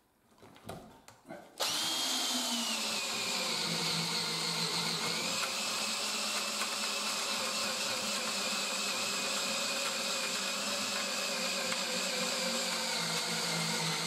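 Power drill on a slow speed boring the latch-body hole into the edge of a wooden door with a spiral auger bit, starting suddenly about one and a half seconds in after a few faint clicks. Its whine drops a little as the bit bites in, then it runs steadily under load.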